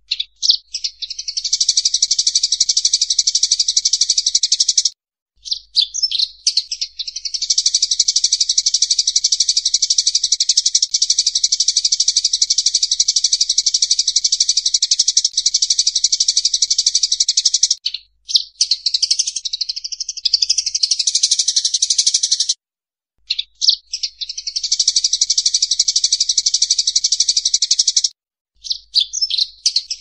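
Sparrows fighting: a dense, rapid, high-pitched chatter of calls in long runs, broken by a few short pauses.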